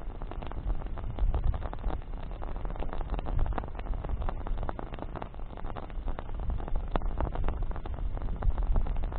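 Wood bonfire burning, crackling with frequent irregular small pops over a steady low rumble.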